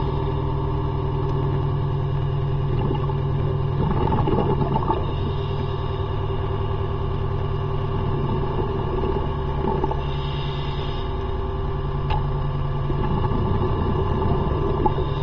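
A motor driving a propeller runs at a steady speed, a constant low hum with several unchanging overtones. Scattered knocks and rattles come and go over it.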